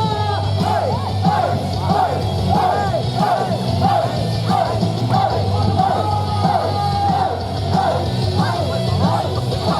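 Recorded song with a sliding sung melody over a steady beat, with some shouting.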